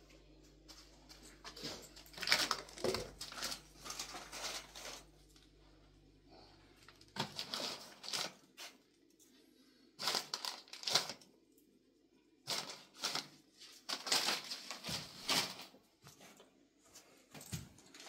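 Irregular crinkling, crackling and clicking of things being handled, in short clusters with quiet gaps between them. A low steady hum underneath stops about seven seconds in.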